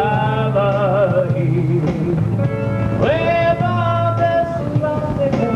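A man singing live into a microphone to guitar accompaniment, drawing out long notes with vibrato: one at the start and another held from about three seconds in.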